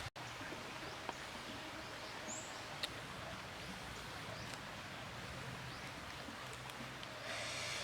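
Outdoor ambience: a steady background hiss with a few light clicks and one short, high rising chirp about two seconds in, typical of a small bird. A brief rustling swell near the end.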